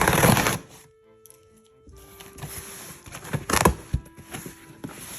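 Cardboard box and packaging being handled during an unboxing: a loud rustle at the start, then scattered clicks and crinkles from about two seconds in. Soft background music plays underneath.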